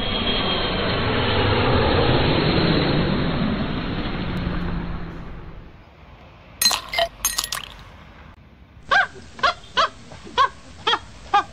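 A loud rushing noise that fades out by about six seconds in, then a brief clattering crash, then about six short animal calls, roughly two a second, near the end.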